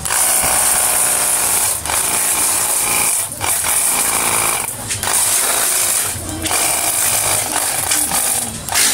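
24-volt battery-powered high-pressure washer spraying water onto a motorcycle: the hiss of the water jet over the pump motor's hum, in five bursts of one to two seconds with short breaks between them.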